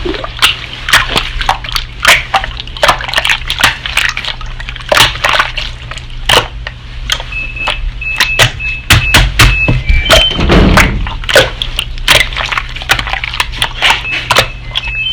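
Slime being pressed and squished by hand, a dense, irregular run of sharp wet clicks, pops and squelches.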